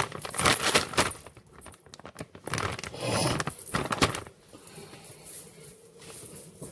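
Metal kitchen items clinking and clattering in a few short bursts with quieter gaps between.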